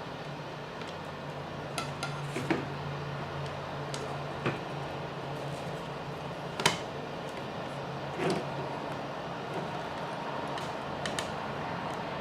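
Small plastic and metal kit parts clicking and tapping now and then as they are handled and fitted together, the sharpest tap about six and a half seconds in, over a steady low hum.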